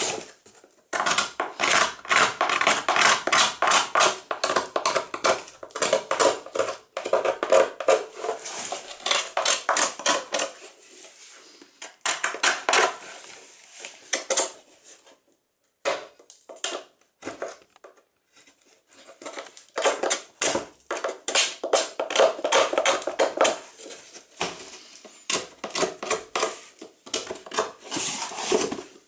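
Rapid, repeated scraping strokes of a hand tool working a hard plastic part, in runs broken by short pauses.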